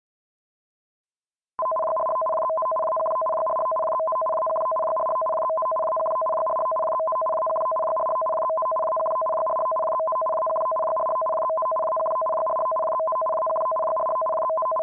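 Japanese Emergency Warning Broadcast System alert signal, a two-tone data signal switching rapidly between about 640 Hz and 1024 Hz. It starts abruptly about a second and a half in after silence and marks the opening of an emergency broadcast, here a tsunami warning.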